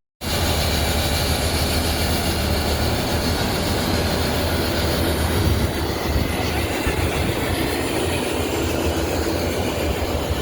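A train running past on the track: a steady, loud rumble and rattle of wheels on rails.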